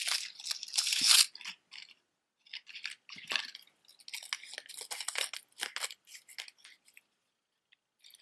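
Costume jewelry earrings being handled and sorted: a crinkling, clicking rustle, loudest in the first second, then coming back in scattered bursts.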